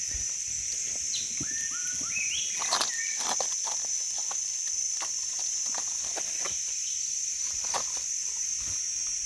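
Insects shrilling steadily in the forest, one high continuous drone. A bird gives a few short rising notes about two seconds in, and there are scattered light clicks and crunches of footsteps on forest litter.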